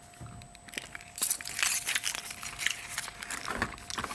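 Foil wrapper of a Kinder Surprise chocolate egg being peeled off by hand, crinkling and rustling with quick crackles, starting about a second in.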